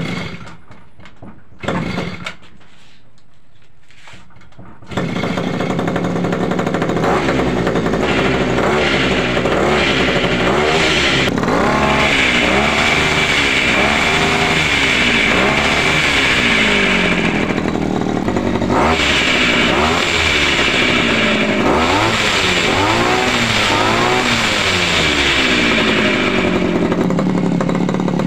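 Small two-stroke brush-cutter-type engine driving a homemade outboard's shaft: two pulls on the recoil starter, then it catches about five seconds in and runs. It is revved up and down over and over, then drops back to a steadier idle near the end.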